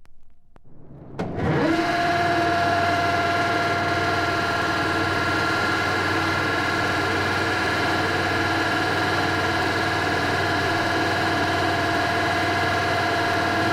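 A machine starting up about a second in, then running steadily at an unchanging pitch: a steady whine over a noisy hum.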